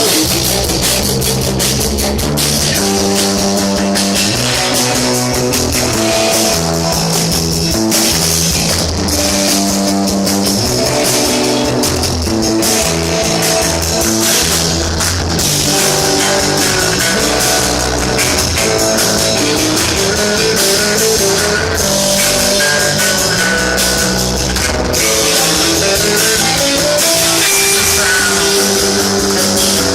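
Live punk rock band playing, with electric guitar, bass and drum kit, recorded loud from among the audience.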